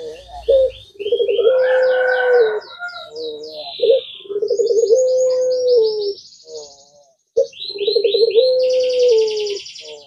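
Puter pelung, a domesticated ringneck dove, cooing in four long drawn-out coos, each held on one low note that steps down near its end. Over them a small bird chirps quick runs of high notes.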